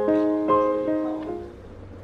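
Background music: gentle piano chords, the last one dying away about one and a half seconds in.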